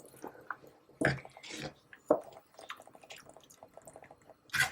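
Water being added to a pot of curry, with several short splashes and drips.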